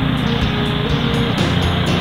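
Background music with a steady beat and held notes that change about halfway through, over a dense, steady mechanical rumble like a snowblower engine running.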